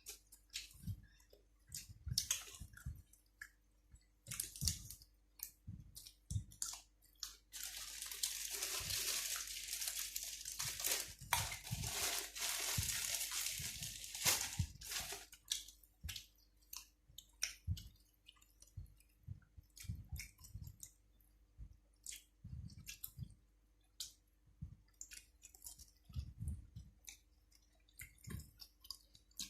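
A person chewing food close to the microphone, with repeated crunches and wet mouth clicks. Midway, a steady hissing rustle lasts about seven seconds.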